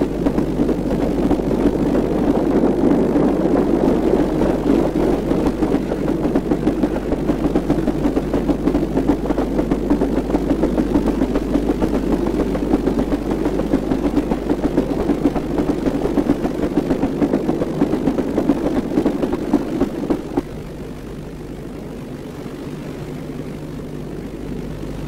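Diesel locomotive engine running steadily with a heavy rumble over a constant low hum; about twenty seconds in it drops to a lower, quieter level.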